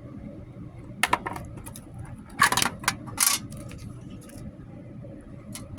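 Small objects being handled: a few light clicks and two short rustles.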